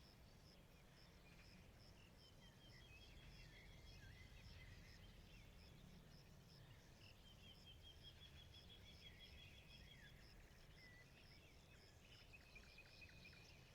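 Faint forest ambience: birds chirping and warbling in short phrases, over a high, evenly repeating call that pulses several times a second.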